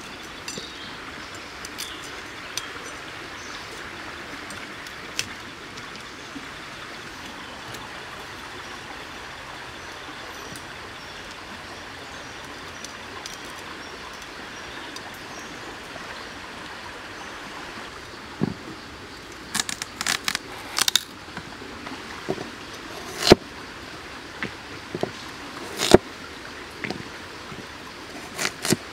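A cleaver chopping broccoli and carrot on a banana leaf over a wooden board. A steady background hiss runs under it, and from about two-thirds of the way in there is a string of sharp knocks, with the loudest two some three seconds apart.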